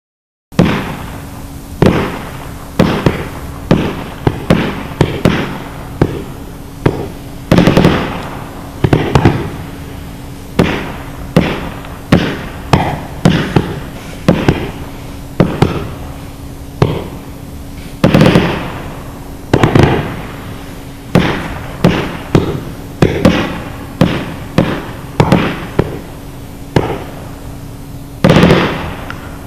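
500-gram aerial repeater firework cake going off: a long string of sharp bangs, about one to two a second, each trailing away before the next.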